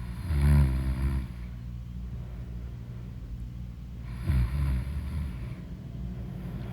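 A woman snoring loudly in her sleep: two snores about four seconds apart, each a low fluttering vibration about a second long.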